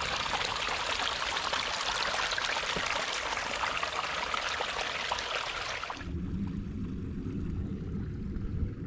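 Small stream trickling and splashing, a steady bright rush of water. About six seconds in it cuts off abruptly to the low rumble of wind on the microphone.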